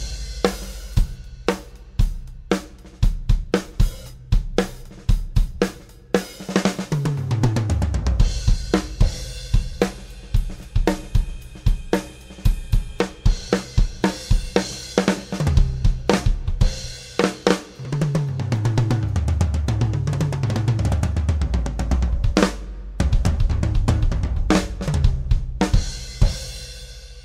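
Brady Jarrah-ply drum kit played in a groove of kick drum, snare and cymbals, with a deep low end. Several tom fills step down in pitch from the high toms to the floor tom, and near the end a final hit is left to ring out.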